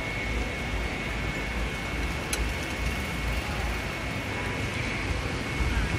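Steady background noise with a low rumble and a faint, constant high whine, broken once by a brief click about two seconds in.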